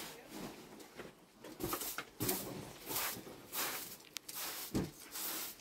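Bundled straw broom sweeping a carpet, a brisk swish roughly every two-thirds of a second.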